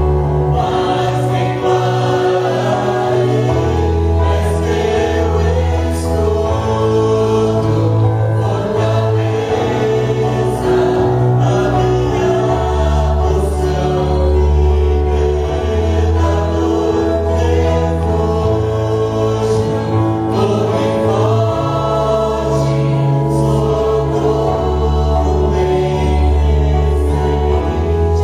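Live gospel worship music: voices singing over sustained bass notes that change every couple of seconds.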